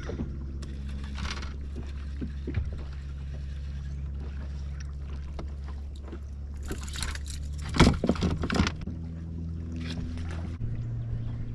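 A boat motor runs steadily with a low hum, its pitch shifting about nine seconds in and again a little before the end. About eight seconds in, a short loud clatter of knocks rises over it.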